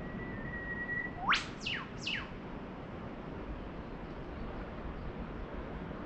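A bird calls at dawn: a short steady high whistle, then about a second in three quick sharp sweeping notes, the first rising and the next two falling, over a steady low background hiss.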